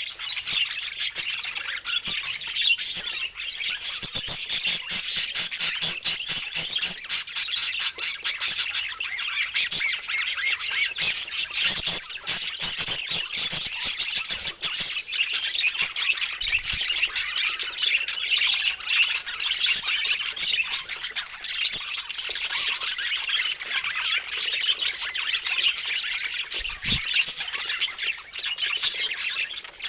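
Budgerigars chattering continuously, with many short squawks and chirps.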